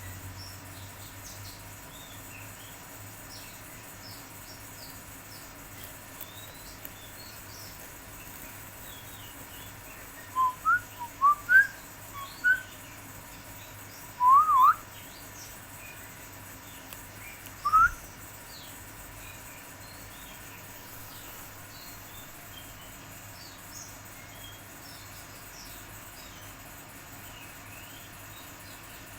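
Small birds chirping faintly and continuously, with a handful of loud, short whistled notes, some rising and some zig-zagging, in the middle stretch.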